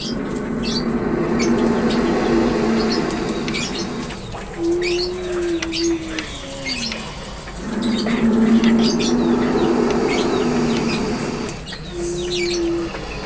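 King cobra growling: two long, low, rasping hisses of about four seconds each, with shorter falling tones between them and near the end.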